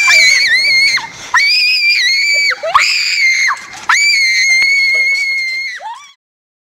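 A young girl screaming: four long, high-pitched shrieks in a row, the last one held longest before it cuts off suddenly near the end.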